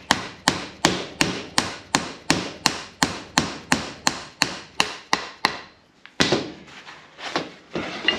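A mallet hammering the end of the main shaft of an old Toyota Land Cruiser steering box, about three steady blows a second, to tap the shaft out of the housing. The run of blows stops about five and a half seconds in, and a few scattered knocks follow.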